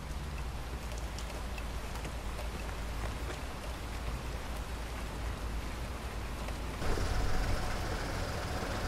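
Steady rain hissing on a street, with a low rumble underneath and the odd drop ticking. About seven seconds in the sound steps up louder as a car's idling engine comes in.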